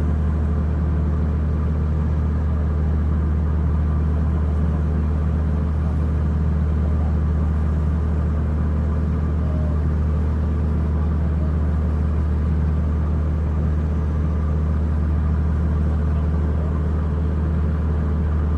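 Large engine running at a steady speed, a constant low drone with no change in pitch.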